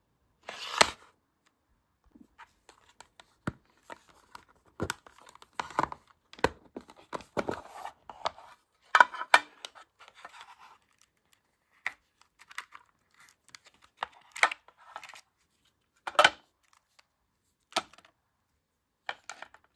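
A model locomotive's clear plastic case and packing insert being opened and handled: irregular clicks and taps of hard plastic with short rustles and scrapes, the loudest just under a second in.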